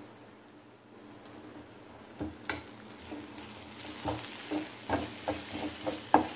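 Perforated steel ladle stirring and scraping thick onion-tomato masala in an aluminium kadai, mixing freshly added spice powders in, over a light sizzle. The scrapes begin about two seconds in and come faster and louder toward the end.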